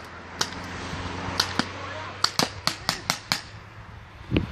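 Paintball markers firing: a scatter of sharp pops at irregular intervals, several close together in the middle, with a low steady hum under the first half and a duller thump near the end.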